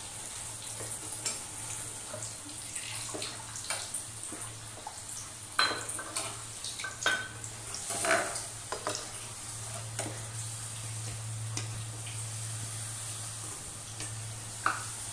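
Potato Manchurian balls deep-frying in hot oil in a steel kadai on their first fry, a steady sizzle and bubbling under a low hum. A metal slotted spoon clinks against the pan several times.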